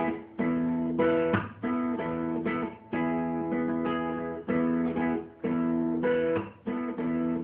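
Acoustic guitar strummed in a steady rhythm, about two chord strokes a second, with no voice: an instrumental passage between sung lines.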